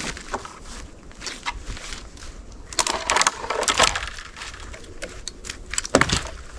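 Dry twigs and woody debris crackling and snapping as they are handled and trodden, with a dense run of cracks about three seconds in and one sharp snap near the end.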